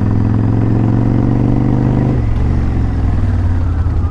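Kawasaki Vulcan 1500 Classic's V-twin engine slowing as the motorcycle decelerates, its pitch sinking slowly, then dropping to a lower, steady run about two seconds in as the bike comes to a stop.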